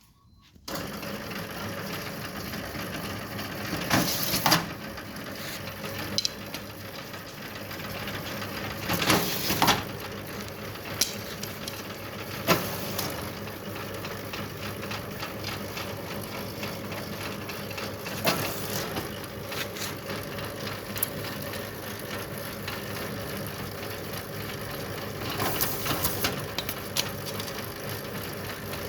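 A 3-in-1 bamboo shaving machine for satay-skewer sticks running steadily, with a short burst of louder clattering knocks every few seconds. The knocks come from the sticks hitting bamboo nodes as they feed through.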